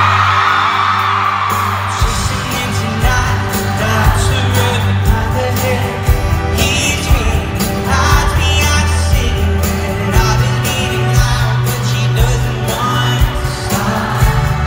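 A live pop band heard through a venue PA, recorded from among the audience: strummed acoustic guitar and singing over bass, with a steady drum beat coming in about two seconds in.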